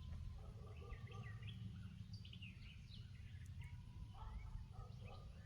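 Small birds chirping and twittering in many short, quick calls that slide in pitch, over a steady low rumble.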